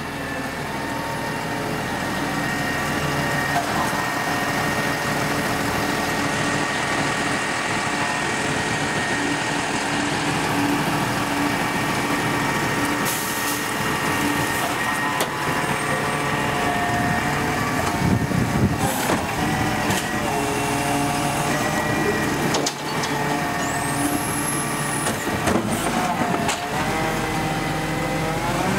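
Volvo FL250 side-loader garbage truck working a kerbside pickup: its diesel engine runs steadily under a hydraulic whine while the lift arm handles a recycling bin, with clattering and knocks as the recyclables are tipped and the bin is set down. Near the end the engine revs rise as the truck moves off.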